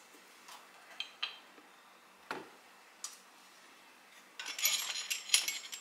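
Small clay mugs clinking against their hanging hooks and each other as they are hung up on a rod. A few separate light knocks come first, then a longer run of clattering near the end.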